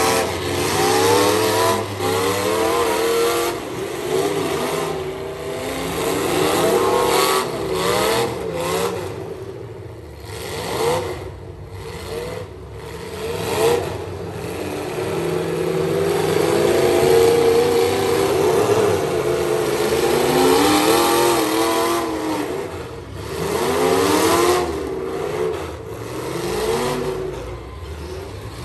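Several demolition-derby pickup trucks' engines revving up and down over one another as they drive and ram on the track, with a few sharp knocks near the middle.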